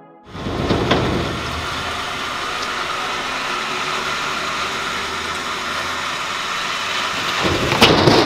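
Truck engine running steadily while a heavy steel truck-bed section is dragged off by cable. Near the end comes a loud metallic crash and clatter as the section drops to the ground.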